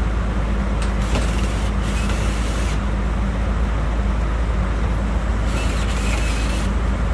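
Sanyo eco-i VRF outdoor condensing units running steadily, a loud low hum and drone from the compressors and fans, with a brighter hiss rising briefly about a second in and again near six seconds. The system is running normally.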